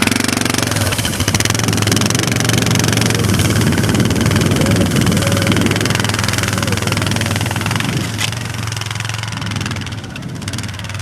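ATV engine running steadily as the machine is ridden through a rough, boggy stretch of trail, getting quieter near the end.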